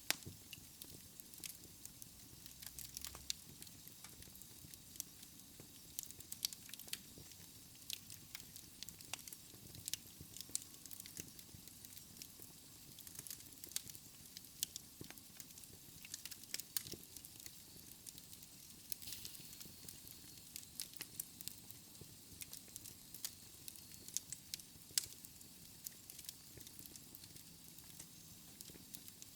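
Wood fire in a fireplace crackling: irregular sharp pops and snaps over a soft, steady hiss.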